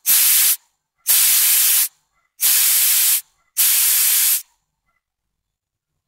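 Compressed air hissing out of a restored Michelin tire inflator in four short bursts, each under a second, as its trigger valve is opened and shut. The inflator's once-stuck valve now lets air through and cuts it off cleanly.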